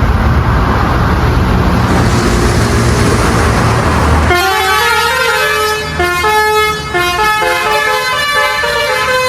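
Bus engine rumbling. About four seconds in, the bus's basuri telolet horn starts playing a quick melody of changing musical notes.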